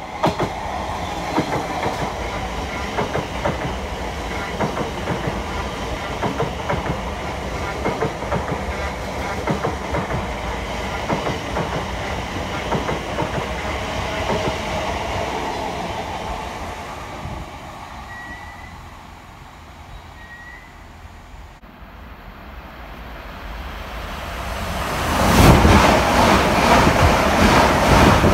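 Class 345 electric multiple-unit train running along the platform, its wheels clicking over rail joints, fading as it moves away. Near the end a second electric train passes close by, much louder, with wind buffeting the microphone.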